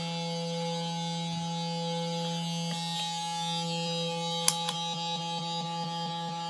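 A steady, buzzy electronic drone from a guitar-pedal feedback loop run through a fuzz pedal, oscillating on its own with no instrument played: one held pitch with many overtones. A single sharp click comes about four and a half seconds in.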